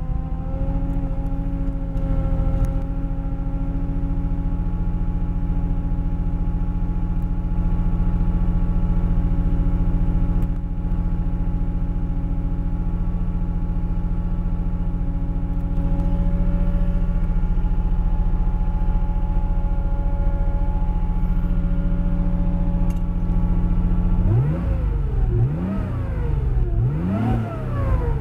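1995 Nissan Skyline GT-R R33 V-Spec's twin-turbo RB26DETT straight-six, fitted with Nismo turbos and an HKS front pipe, held at a steady engine speed of about 4,000 rpm with the car standing still. Near the end it changes to a run of quick revs that rise and fall four or five times.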